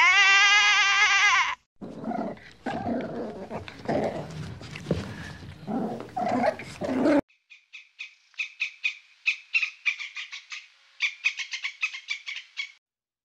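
A sheep's wavering bleat, then several seconds of rough, noisy animal calls, then a run of fast, high chirps.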